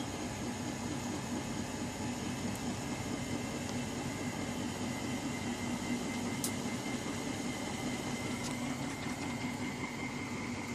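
Miele Gala W961 washing machine drum turning in its continuous soft-start spin, the motor giving a steady low hum with a thin high whine over the noise of the drum.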